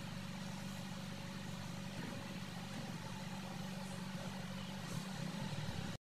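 A steady low machine hum, like a motor running, unchanging throughout.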